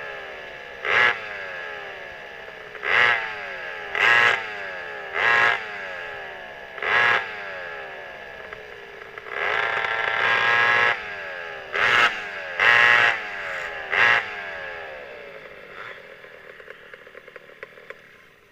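Twin McCulloch 5.3 ci two-stroke chainsaw engines on a vintage rear-engine kart, blipped in short bursts of throttle every second or two while the kart coasts, the revs sliding down between blips. About halfway through comes one longer burst of throttle, then a few more blips, and the engines wind down and fade away near the end.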